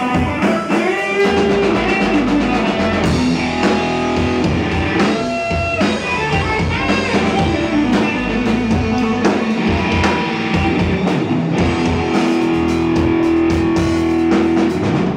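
Live rock band playing: electric guitar over bass guitar and drum kit.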